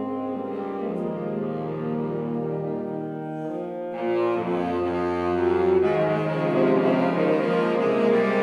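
Saxophone ensemble playing long, held chords that shift slowly over a low bass note. About halfway through the sound swells, growing louder and brighter.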